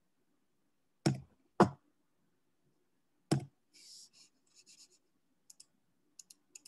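Computer mouse clicks picked up by a headset microphone: three sharp clicks in the first half, then faint scratchy rustles and a few light ticks. They are repeated clicks while a slide presentation is stuck and will not advance.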